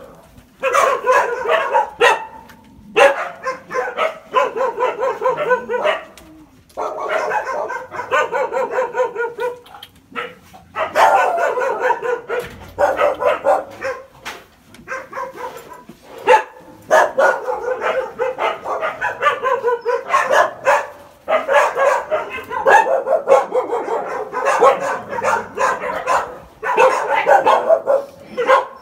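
Dogs barking and yelping in long runs of rapid calls, broken by short pauses.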